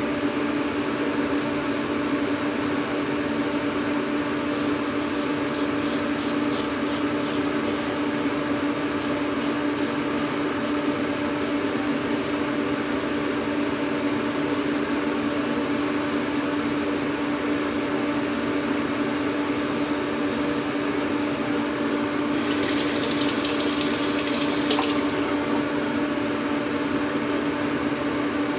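Straight razor scraping through lathered stubble in a run of short strokes, over a steady mechanical hum. About twenty-two seconds in, a tap runs for about three seconds.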